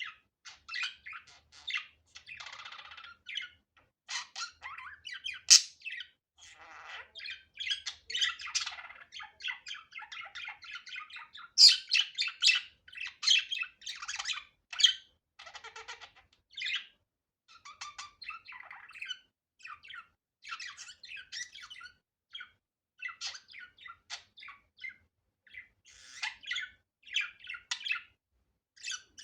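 Budgerigar chattering and warbling: a rapid, unbroken stream of short chirps, trills and squawks, with a few louder sharp calls near the middle.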